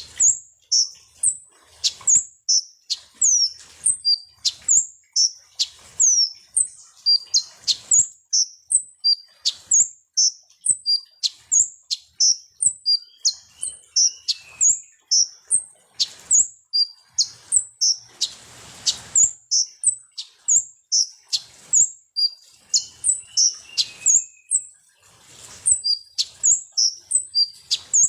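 Konin (kolibri ninja) sunbird singing: a fast, steady run of short, high, sharp chirps, about two a second, many of them dropping in pitch, with an occasional lower trill. A brief rustling noise comes about 18 seconds in.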